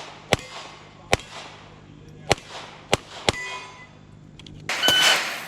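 .22 rimfire gunshots, about five sharp cracks at uneven intervals. Near the end a shot timer beeps over a burst of noise.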